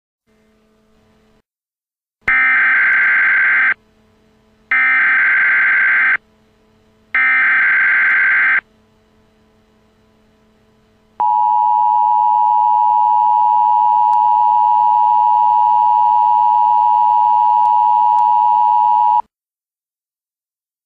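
Emergency Alert System tones: three short, identical bursts of SAME header data, then the steady two-tone EAS attention signal held for about eight seconds. Together they mark the start of an emergency alert broadcast.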